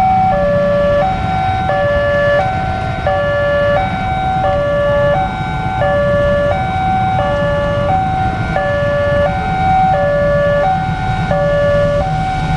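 Two electronic railway level-crossing alarms sounding at once, each with its own pitch. The main one alternates a high and a low tone about every two-thirds of a second in a steady hi-lo warble. Beneath them is the low rumble of idling motorcycle engines.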